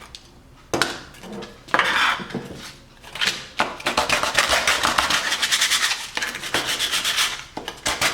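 A blast-gate part being cut along a marked line: a few knocks and scrapes of handling, then from about four seconds in a fast, steady rasping cut.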